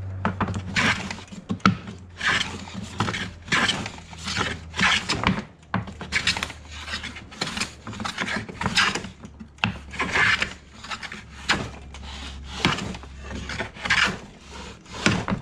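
A century-old Mathieson & Sons wooden jack plane planing pallet timber in short, quick strokes, about two rasping cuts a second, each taking off thick shavings. The strokes work down the high middle of a bowed board.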